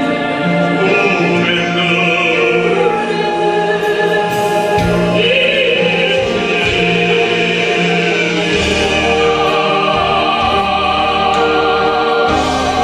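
A baritone sings in operatic style over instrumental accompaniment, then a soprano joins him in a duet.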